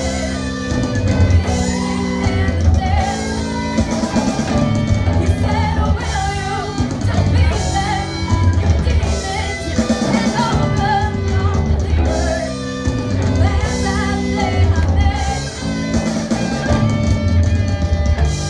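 Live rock band playing: a woman sings lead over electric guitars, bass guitar and a drum kit, with a steady pulsing bass line.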